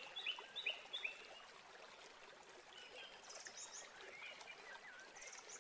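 Faint bird chirps over quiet outdoor background: a quick run of four short, high chirps in the first second, then scattered fainter calls.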